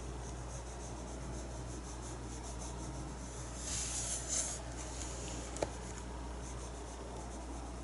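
Paintbrush stroking and dabbing acrylic paint on a canvas in soft repeated strokes, with a louder swish about four seconds in and a sharp click a little later. A steady low hum runs underneath.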